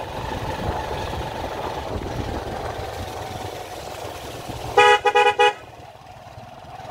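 Motorcycle running along at riding speed, then its horn sounds four quick beeps about five seconds in. The engine drops back quieter after the beeps.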